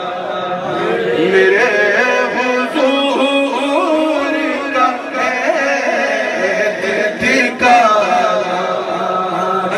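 A man's voice singing a melodic devotional chant into a microphone, the line wavering and held with few breaks.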